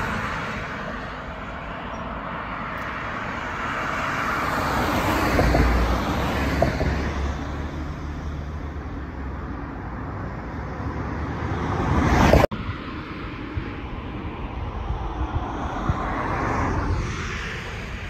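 Road traffic on the bridge: passing cars' tyre and engine noise swelling and fading twice, over a steady low rumble of wind on the microphone. The sound breaks off abruptly for an instant about twelve seconds in.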